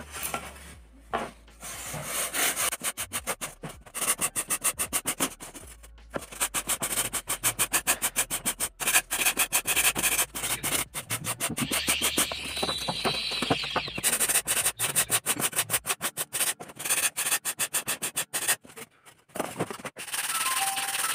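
Sandpaper on a wooden sanding block rubbed quickly back and forth over a foam fish-box wing, about four strokes a second, with a few short pauses; the foam is being sanded down to shape the wing. Music comes in near the end.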